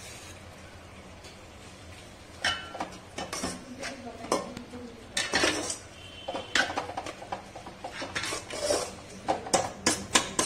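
Metal spoon stirring semolina into boiling water in an aluminium pot, scraping and clinking against the pot in quick, irregular strokes that start about two and a half seconds in. The semolina is being stirred so it cooks without forming lumps.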